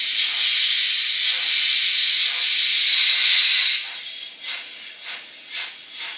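N-scale model steam locomotive's sound decoder giving a long hiss of escaping steam that cuts off after nearly four seconds, then slow steam chuffs about two a second as the locomotive starts to move.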